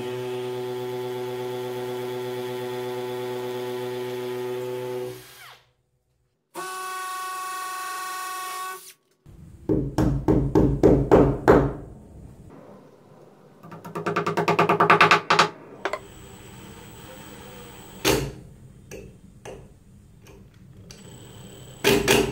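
Cordless hammer drill in hammer mode boring into brick with a masonry bit: a steady whine for about five seconds, then a second, shorter, higher-pitched run. After that a Makita impact driver drives screws in several short rattling bursts, with a single sharp knock between them.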